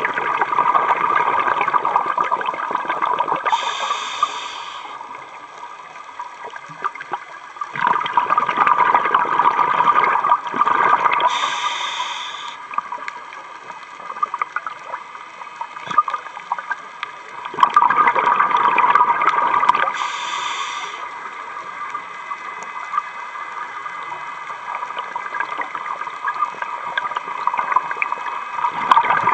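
Scuba diver breathing through a regulator underwater. Three long rushes of exhaled bubbles come about every ten seconds, and each is followed by a short high hiss.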